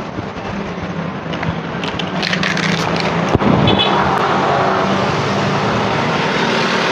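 A motor vehicle's engine running close by, a steady low hum that grows louder about halfway through and then holds.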